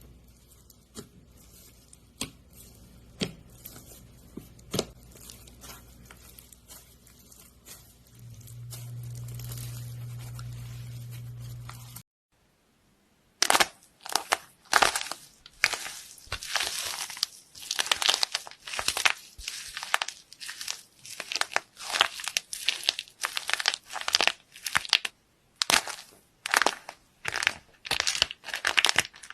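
Faint scattered clicks, then a low hum; after a brief silence, a long run of loud crunchy crackles and crinkles, several a second, from a crunchy material being handled.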